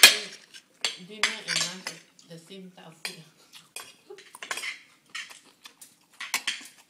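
Metal spoon clinking and scraping against a plate of rice, a series of short sharp clicks.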